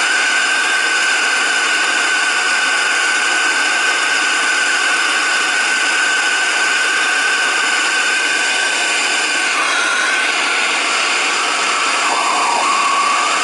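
Hand torch flame hissing steadily with a high whistling tone while heating a copper refrigerant-line joint at a filter drier for soldering. The whistle wavers about ten seconds in and drops lower near the end.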